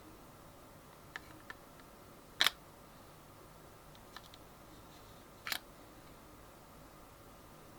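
A few small, sharp clicks of hard plastic being handled: faint ones about a second in, a louder double click about two and a half seconds in and another about five and a half seconds in, against a quiet room.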